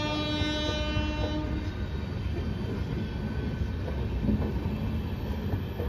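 Passenger coaches of a departing train rolling past with a steady rumble of wheels on the rails. A train horn holds one long note at the start and stops about a second and a half in.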